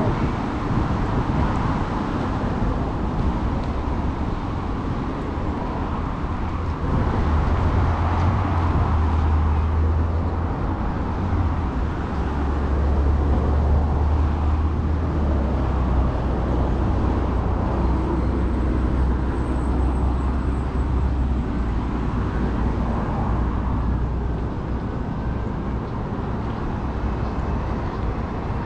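City street traffic: a steady wash of passing cars, with a low drone through the middle stretch.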